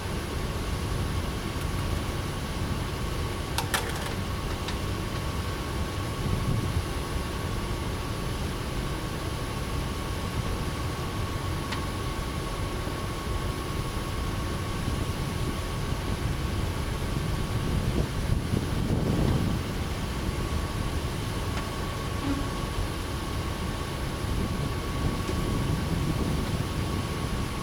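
Steady low rumble of outdoor background noise with a faint constant tone above it, swelling briefly about two-thirds of the way through, and a couple of small clicks early on.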